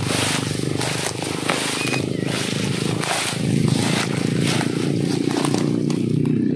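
Tall grass rustling and brushing against the phone as it is pushed through bank vegetation, in many short crackles over a steady low rumble.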